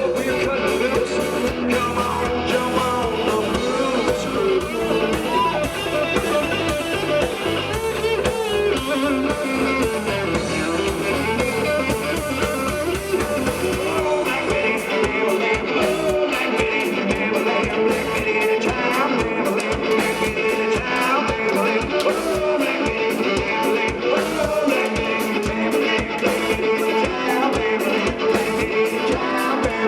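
Live blues-rock band playing, led by electric guitar over bass and drums, with the drum hits standing out more clearly from about halfway through.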